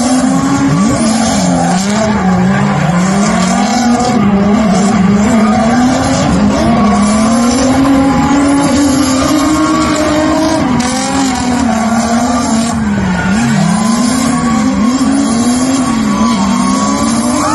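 Two drift cars, a white Nissan 350Z and a blue BMW, in a tandem run at high revs. The engine note constantly rises and dips as the drivers work the throttle, over continuous tyre squeal.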